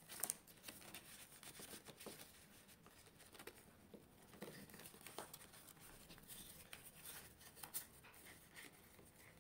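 Faint rustling and crinkling of paper banknotes and a clear plastic zip pouch being handled, with scattered small clicks and taps.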